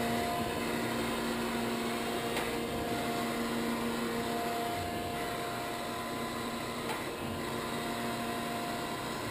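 A Gallmeyer & Livingston Grand Rapids Model 560 surface grinder running: a steady hum from its motors and hydraulic drive, with a few faint clicks.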